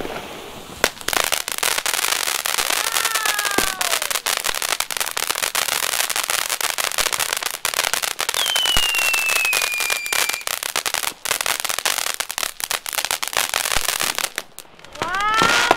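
Ground fountain firework crackling: a dense, rapid run of small pops from its crackling stars, starting about a second in and dying out shortly before the end. A falling whistle cuts through it about eight seconds in.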